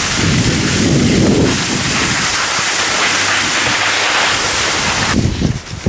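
Steady rush of wind on the microphone mixed with the hiss of skis sliding over snow. The rush drops off sharply about five seconds in.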